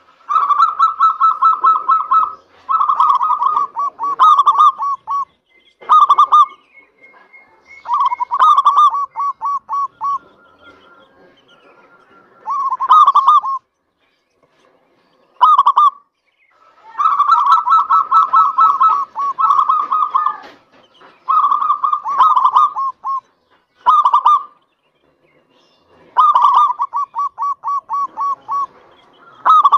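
Zebra dove (perkutut) in full song: repeated bouts of rapid, staccato cooing notes, each bout one to three seconds long with short pauses between, and a couple of longer lulls part-way through.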